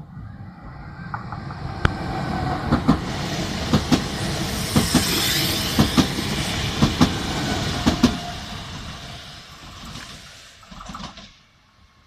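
Electric passenger train passing at speed. Its rolling noise builds and then fades away as it recedes. The wheels give a steady clickety-clack over the rail joints, paired clicks about once a second.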